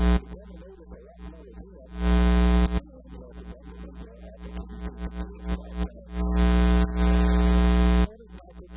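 Electrical mains hum and buzz, a steady low drone with a buzzing edge, surging loud twice: once for under a second and once for about two seconds near the end.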